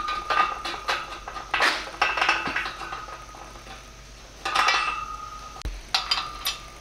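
Steel hardware clinking and knocking against the perforated steel uprights of a Rogue rack during hand assembly: several sharp metallic clanks, a few leaving a short ring.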